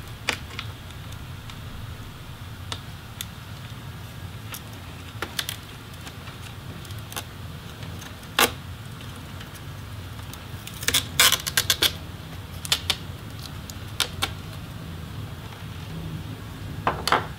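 Scattered light clicks and rattles of a screwdriver, cables and small plastic parts being handled on an opened laptop's bottom chassis, with a quick run of clicks about two thirds of the way through, over a low steady hum.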